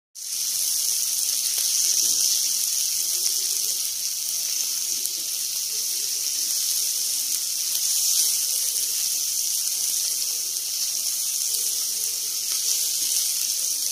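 Chicken keema, onions and spring onion sizzling in oil in a stainless steel pan as they are stirred with a silicone spatula: a steady frying hiss.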